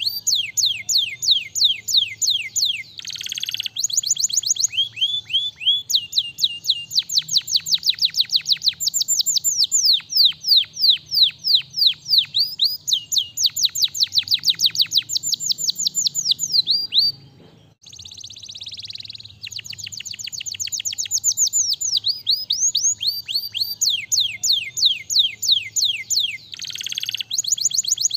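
Domestic canary singing a long song of fast trills, each a rapid run of down-slurred whistled notes, broken by a few harsher buzzy phrases and one short pause about two-thirds of the way through.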